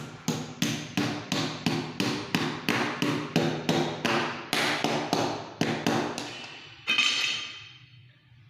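A rapid, even series of metallic knocks, about three a second, each with a short ringing tail. Near the end a final strike rings on and fades away.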